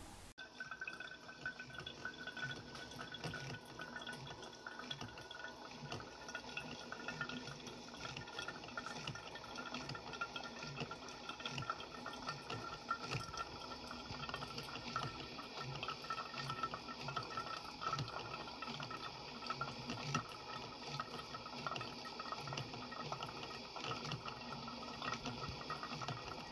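Liquid from a Cuisinart drip coffee maker running steadily down into the 10-cup carafe through its freshly cleaned lid, like a container being filled.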